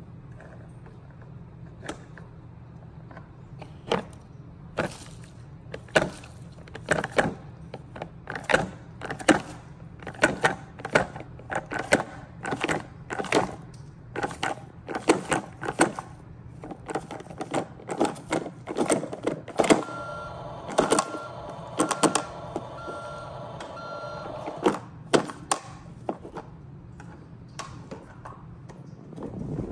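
Irregular sharp plastic clicks and leaf crackles, one or two a second, as leaves are pushed and tipped into a toy garbage truck's plastic hopper. About two-thirds of the way through, an electronic tone and a short run of beeps sound for a few seconds.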